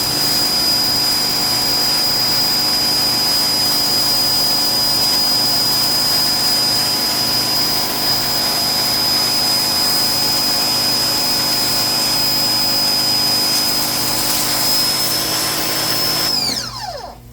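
Ryobi 1600 PSI electric pressure washer running steadily with a high whine over a dense hiss, then winding down with a falling pitch near the end as the motor stops.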